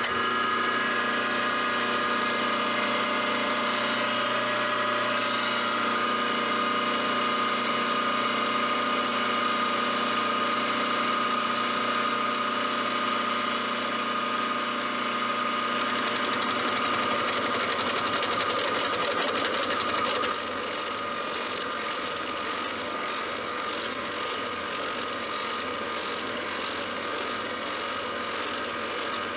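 Milling machine running a Superfly fly cutter, its spindle drive and power feed giving a steady whine, as it takes the first facing cut across a metal jaw blank. From about sixteen seconds in a fast, even chatter joins the whine, and the sound drops a little about twenty seconds in.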